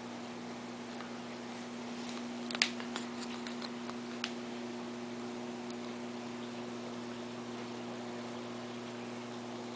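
Steady low electrical hum of running aquarium equipment, with a short cluster of sharp clicks and taps about two and a half seconds in.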